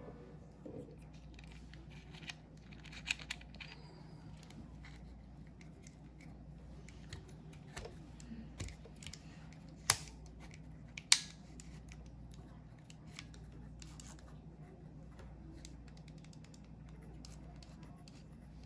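Small clicks and scratches of a mini rotary tool and a grinding-stone bit being handled while the bit is fitted into the collet, with two sharper clicks about ten and eleven seconds in. The tool is not running.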